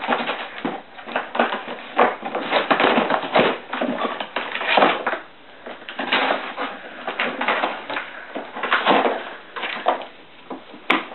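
A Scottish terrier tearing and chewing at a cardboard box to get at a treat inside: irregular crumpling and ripping of cardboard and paper.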